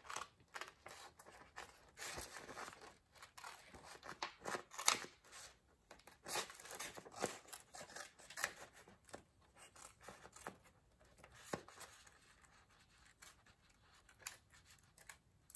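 Scissors cutting paper in a run of irregular snips with some paper rustle, thinning out over the last few seconds.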